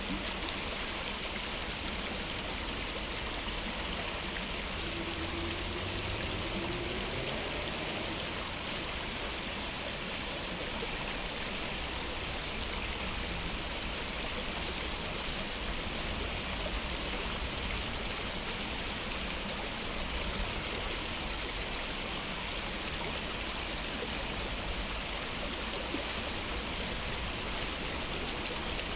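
Running water of a valley stream, a steady, even rush with no break or change.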